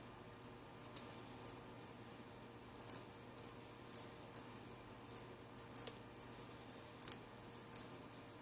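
Short, sharp scrapes and clicks at irregular intervals, about one or two a second, from a knife blade scraping old adhesive off a smartphone's frame.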